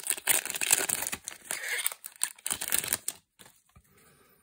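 Foil wrapper of a Magic: The Gathering booster pack crinkling and tearing as it is opened by hand, with many sharp crackles. It stops about three seconds in.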